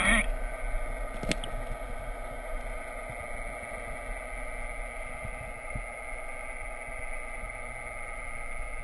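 Boat motor heard through the water as a steady hum of several tones over a low rumble, with a sharp knock at the start and a faint click about a second in.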